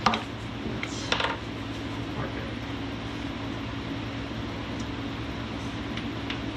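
A steel steering-valve bracket clinking against the underside of a Jeep Cherokee XJ's frame as it is held up and test-fitted: one sharp clink at the start and a few more about a second in, then only faint ticks. A steady fan-like machine hum runs underneath.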